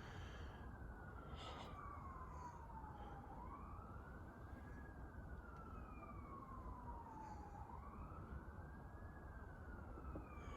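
Distant emergency vehicle siren in a faint, slow wail: the pitch rises quickly, then falls slowly, three times over, about every four and a half seconds.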